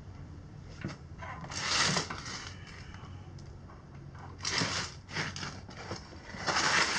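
Clunks and scraping as an electric dirt bike's front fork is worked up into the frame's head tube onto freshly greased tapered roller bearings. There are three short noisy scuffs, about two seconds in, in the middle and near the end, with small knocks between them.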